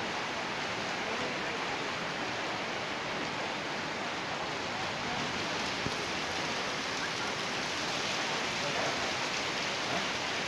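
Heavy rain pouring down, a steady, dense hiss of rainfall.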